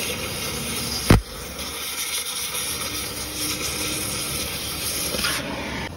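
Cutting torch hissing steadily as it burns a washer off a suspension bushing bolt. One sharp pop comes about a second in, and the hiss eases off near the end.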